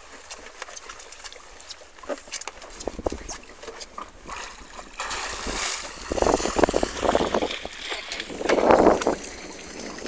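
Water splashing and sloshing against the side of a wooden fishing boat, with scattered knocks and taps on the boat. The splashing grows louder about halfway through, with two heavier surges near the end.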